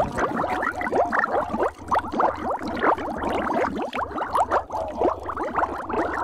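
Water bubbling and gurgling, a dense unbroken run of quick bubble pops over a faint low hum.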